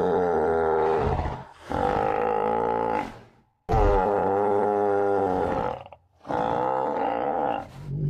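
Sound effect of the extinct Chalicotherium, a reconstructed animal voice: a run of long, pitched calls, each about one and a half to two seconds, with short breaks between them.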